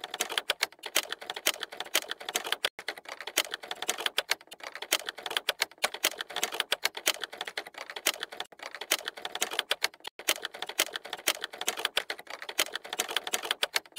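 Rapid, irregular clicking and clacking, several sharp clicks a second, like keys being struck, with two short breaks about three and ten seconds in.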